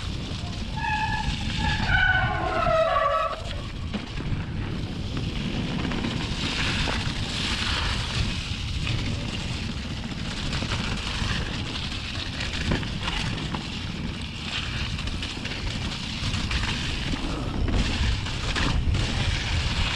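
Mountain bike descending a wet, muddy trail at speed: tyres rolling and skidding over mud and fallen leaves, with knocks and rattles from the bike and a steady rush of air. About a second in, a short run of squeaky high notes falling in pitch.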